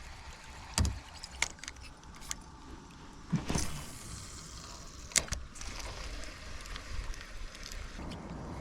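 Scattered light clicks, knocks and rattles of fishing gear being handled in a kayak, over a low steady background.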